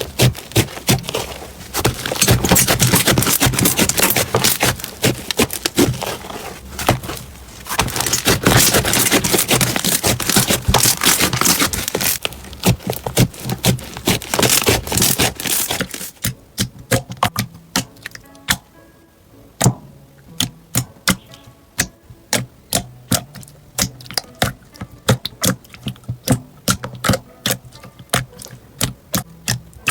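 Slime being squeezed and worked by hand, with dense crackling and clicking that thins after about sixteen seconds to sparser pops and clicks.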